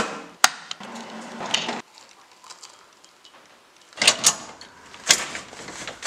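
Hands working an electric kettle: two sharp clicks and a short run of steady noise with a low hum that cuts off suddenly. Then, after a quiet pause, metal knocks and rattles about four and five seconds in as a bike rack is handled on a car's tow bar.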